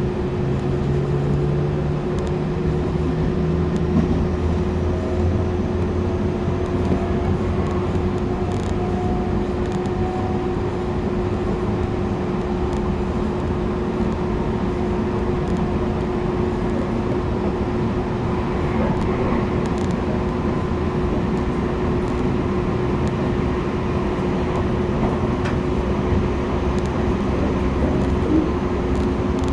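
Tobu Tojo Line electric train heard from inside the carriage as it gets under way after an emergency stop: steady running noise and hum, with a faint motor whine that rises in pitch as it speeds up over the first ten seconds or so.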